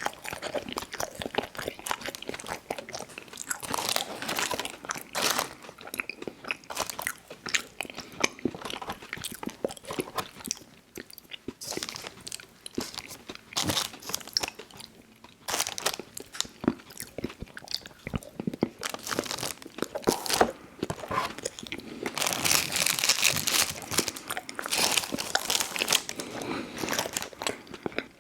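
Close-miked biting and chewing of Little Debbie Birthday Cake snack cakes: mouth sounds with many crisp clicks and crunches, busiest for a few seconds near the end.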